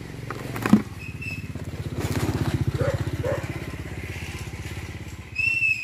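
Motorbike engine running with a steady low putter; it grows louder about two seconds in and eases off near the end.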